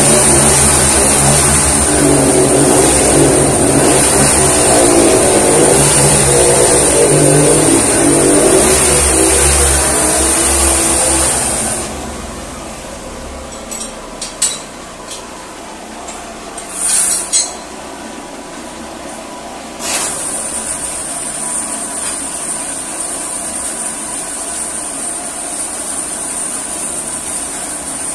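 Small air-cooled engine on water-well drilling equipment, running loud and steady with a high whine over its rumble. Not quite halfway through, it suddenly drops to a much quieter running with the low rumble gone. A few short knocks follow, and the whine returns later.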